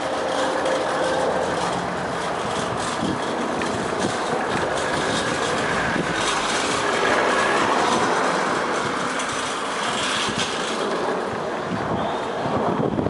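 Shopping trolley rattling as its wheels roll across car park asphalt, a steady clattering noise with many small clicks.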